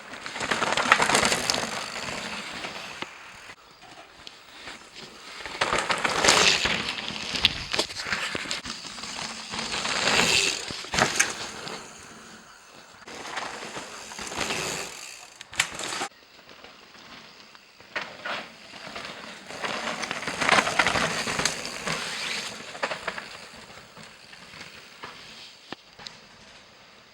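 Mountain bike tyres rolling over rough dirt trail, with rattling and clicking from the bike. The noise rises and falls in several surges as the bike speeds up and slows over the ground.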